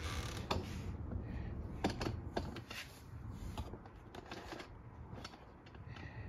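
Scattered light clicks and knocks of deadbolt lock parts being handled and fitted, mostly in the first few seconds.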